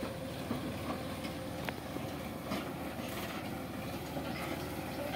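Sonalika 745 DI tractor's three-cylinder diesel engine running steadily under load as it hauls an overloaded trolley through muddy ruts.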